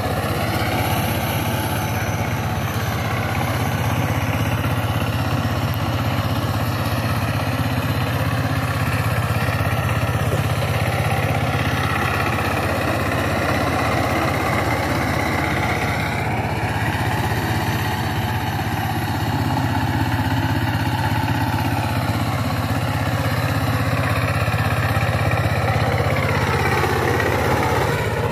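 Two-wheel power tiller's single-cylinder diesel engine running steadily under load as its rotary tiller churns through dry soil. Its pitch sweeps up and down a few times as the machine turns and passes.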